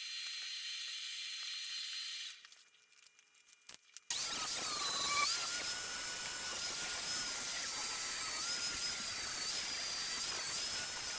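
A steady high hiss, a short lull with a few faint clicks, then about four seconds in a handheld power tool starts up and runs steadily with a high whine that wavers slightly in pitch.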